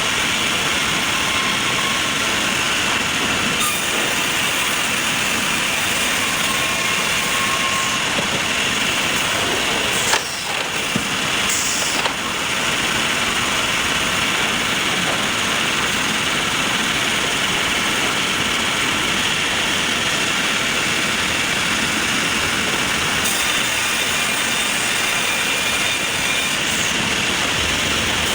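Sawmill machinery running steadily, a dense mechanical din with faint high steady tones, broken by a couple of sharp knocks about ten and twelve seconds in.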